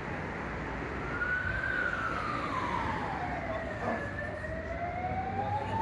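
Emergency vehicle siren in a slow wail: it comes in about a second in, rises, sweeps down over two seconds and starts climbing again, over steady city traffic noise.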